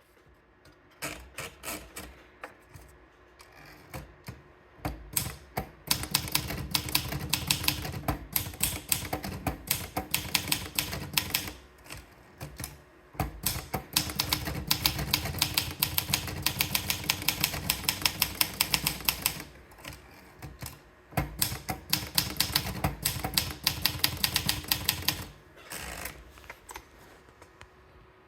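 PMC Elite 44 typewriter being typed on: quick runs of sharp keystrokes, several a second, in three long stretches with short pauses between, preceded by a few scattered keystrokes.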